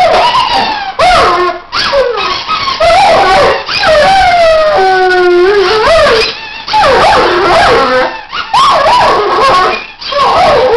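Weimaraner howling in a string of high, wavering calls, the pitch gliding up and down, with a few notes held steady for about a second and short breaks between calls.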